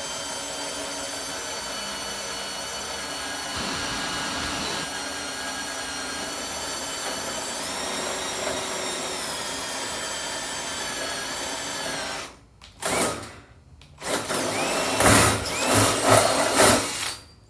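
Electric drill running steadily as it bores a hole through two layers of stainless steel sheet, a motor whine whose pitch steps up partway through. It stops after about twelve seconds, and a few louder clattering handling noises follow near the end.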